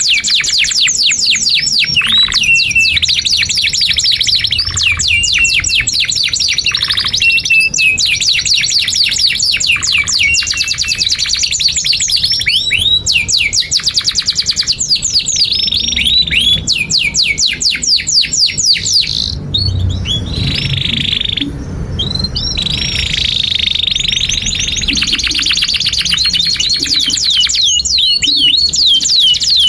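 Domestic canary singing a long, unbroken song of fast trills and rapid repeated chirps, with a short softer stretch about two-thirds of the way through.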